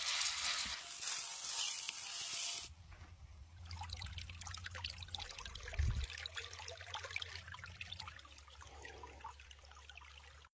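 Potato-pancake batter sizzling in hot oil on a cast-iron griddle for the first few seconds, cut off abruptly. Then a small rocky stream trickles and babbles, with a single low thump about six seconds in.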